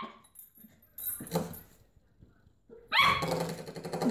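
Cockapoo puppy barking and yapping as it plays with a door-stop spring, with the spring twanging as it is knocked. A couple of short sounds about a second in, then louder barking from about three seconds in.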